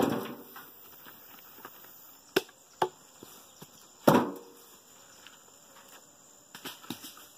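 Damp firewood logs being set down on a woodpile: a loud wooden knock at the start and another about four seconds in, with a few lighter clacks of wood on wood between them and near the end.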